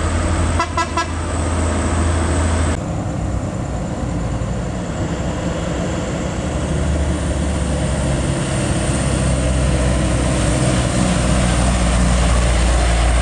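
Truck engines running as trucks pass close by, with a steady low rumble. About a second in, a horn sounds a quick run of short toots.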